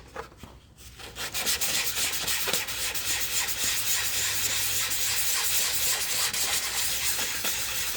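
400-grit sandpaper rubbed in quick strokes over a 3D-printed part, a steady scratchy hiss that starts about a second in. It is smoothing out surface scratches ahead of priming.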